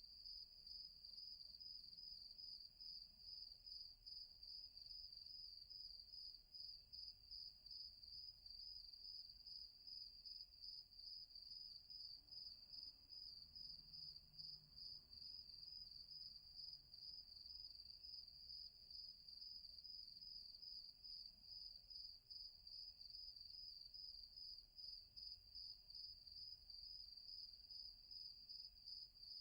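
Faint night-time ambience of crickets chirping in one high, steady, fast-pulsing trill that never pauses, over a faint low rumble.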